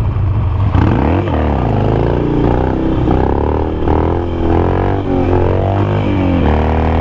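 Harley-Davidson Nightster's 1200 cc V-twin revved hard through a wheelie: the revs climb about a second in, then rise and fall again and again as the throttle is worked to hold the front wheel up, and run at a steady pitch near the end.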